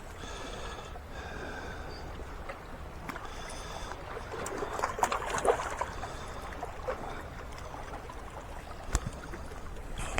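Water trickling and flowing steadily, with a few light clicks and knocks scattered through it.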